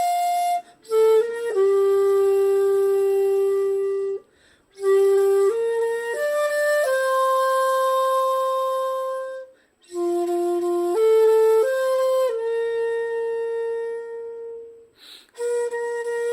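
Shakuhachi playing a slow melody of long, steady held notes without vibrato (yuri), each new note started with the tongue. The notes come in phrases broken by short pauses.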